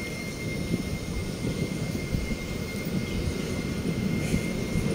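Steady low outdoor rumble, like a distant aircraft, with a faint steady high whine running through it.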